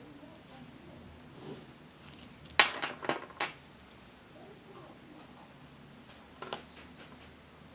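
A quick run of sharp clinks from hard objects knocking together on a desk, a few in a row about two and a half seconds in, then one more shorter clink later.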